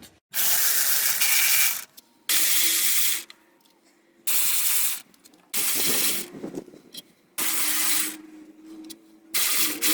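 Pneumatic air ratchet run in six short bursts of hissing air and spinning drive, each about a second long, backing out engine bolts.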